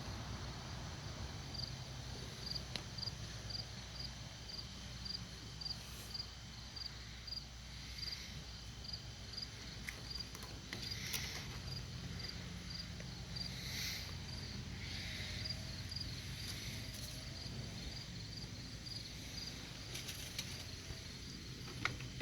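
An insect chirping steadily, about two short high chirps a second, over a low rumble, with a few brief rustles.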